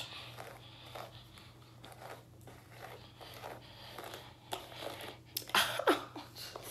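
Hairbrush dragged through dry, tangled natural hair: a series of short rasping strokes, louder near the end. A brief voice sound comes about six seconds in.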